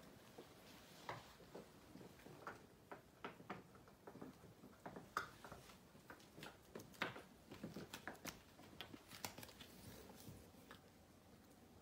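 Corgi puppy gnawing a chew bone: faint, irregular clicks and crunches of teeth on the bone, scattered throughout.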